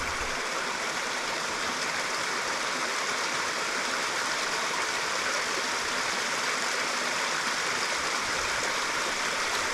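Water rushing steadily down a small waterfall and creek cascade, an even hiss of falling water.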